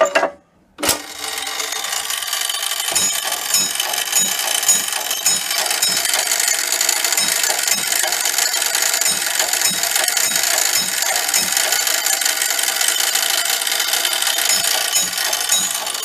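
Clockwork of a circa-1880 Gamewell weight-driven sector fire alarm box running after its hook is pulled: a sharp click as the hook releases, then a steady whirring of the gear train with a regular low knock about twice a second as the box sends its number over the circuit.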